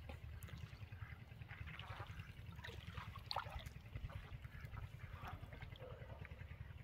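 Faint trickling and splashing of water as a cast net is drawn in by hand through shallow water, with small splashes scattered through and a slightly louder one about three seconds in, over a steady low background noise.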